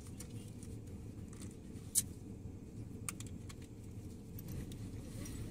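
Faint handling noises, small clicks and rustles as things are sorted through, over a low steady hum. There is a sharp click about two seconds in and another about three seconds in.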